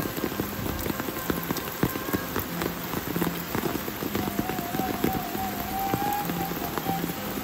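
Rain falling steadily, with many separate drops and drips tapping close by. A faint wavering high tone comes in about halfway through.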